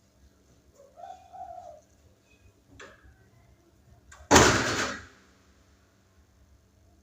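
A spotted dove gives a faint coo about a second in. About four seconds in, a sudden loud rustling burst lasting under a second is the loudest sound, with a short click shortly before it.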